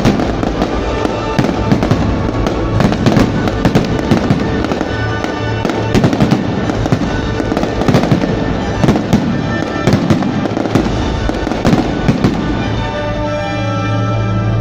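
Fireworks bursting in quick succession, a dense run of sharp bangs and crackles, over the display's music soundtrack playing on loudspeakers. Near the end the bangs thin out and the music comes through more clearly.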